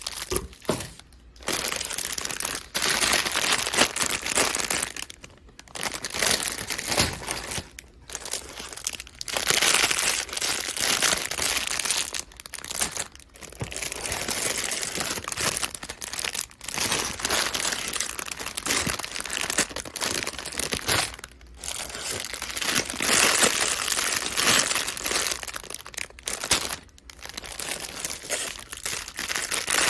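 Plastic Lego bags and wrapping crinkling and rustling as they are handled, in long stretches broken by short pauses.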